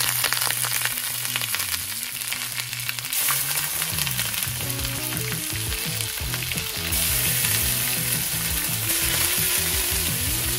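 Beef short ribs searing in a preheated cast-iron Weber Dutch oven: a loud, steady sizzle and spatter of meat hitting very hot metal. It grows louder in steps about three and seven seconds in as more ribs go into the pot.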